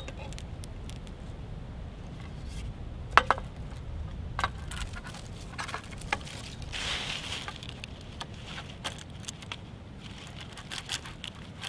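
Handling clicks, knocks and a scrape as the BIG SHOT arborist slingshot's fiberglass poles and head are fitted together. The loudest sound is a sharp double click about three seconds in, and a longer rattling scrape comes near the middle. A low rumble runs underneath.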